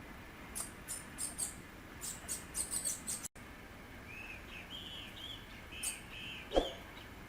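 Bananaquit calling: a quick run of thin, very high sharp notes, then after a brief gap a string of short arched whistled notes. A single thump sounds near the end.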